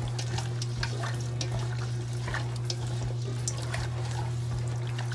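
Chicken leg quarters squelching wetly as a gloved hand works them in a dark jerk marinade in a stainless steel pot, with irregular small clicks and slaps. A steady low hum runs underneath.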